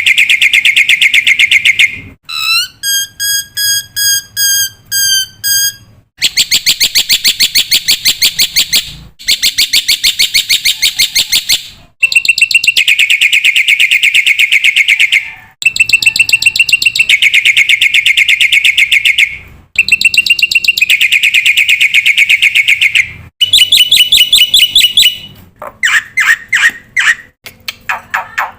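Black-winged myna (jalak putih) singing loudly: long phrases of fast, harsh chattering, each a few seconds long with short breaks between, and after a couple of seconds a run of about eight clear whistled notes.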